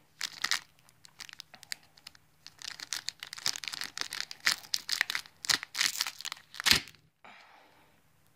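Foil Buddyfight trading-card booster pack crinkling and being torn open by hand: a run of irregular crackles and rips that stops about a second before the end.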